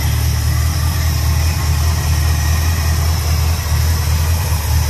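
1966 Buick Wildcat's 401 nailhead V8 idling steadily with a low, even purr, heard up close over the open engine bay.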